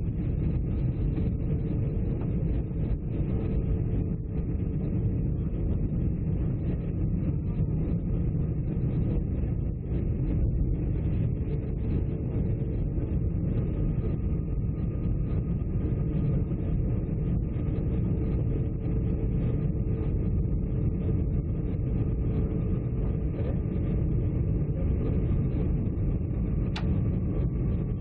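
Airliner cabin noise during descent: a steady low rumble of jet engines and rushing air with a faint steady hum, and a single brief click near the end.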